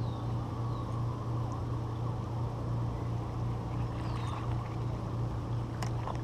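Steady low motor hum with faint sliding whistles above it and a single sharp click near the end.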